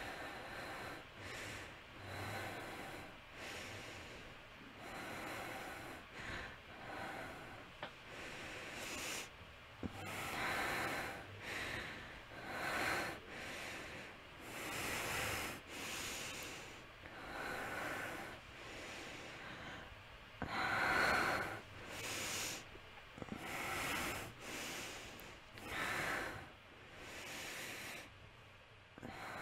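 A young woman breathing heavily through an open mouth, with gasps: loud breaths come every two seconds or so, the strongest about two-thirds of the way through.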